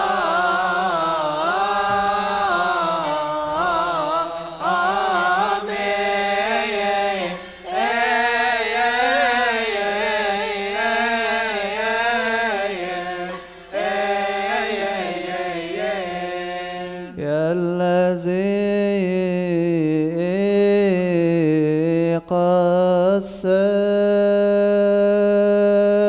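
A man chanting a slow, melismatic Coptic liturgical hymn, long held notes that bend and waver in pitch, broken by short pauses for breath between phrases.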